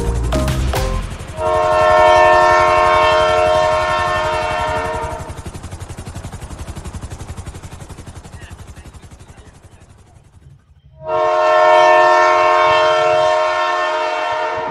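Train horn sounding two long, steady, chord-like blasts of about four seconds each, some six seconds apart. Between them a fast rhythmic beating fades away.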